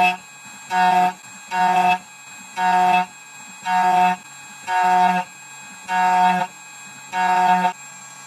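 Electronic beeping, about once a second: eight or so identical beeps, each about half a second long, all on the same pitch.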